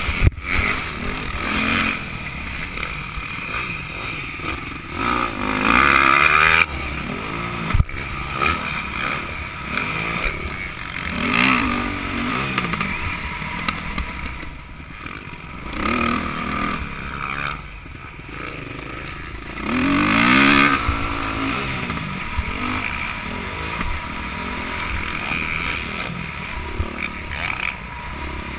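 Dirt bike engine revving up and down repeatedly as it is ridden round a dirt track, heard from a helmet camera over steady wind and track noise. Two sharp knocks cut through, one at the very start and one about eight seconds in.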